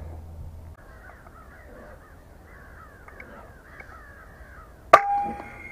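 A flock of crows calling faintly, many short overlapping calls. About five seconds in comes a single sharp crack from a .30-calibre FX Maverick air rifle firing.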